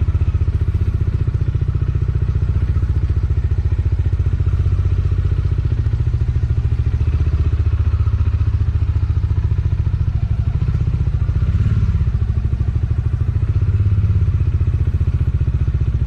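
Bajaj Dominar 400's single-cylinder engine idling steadily.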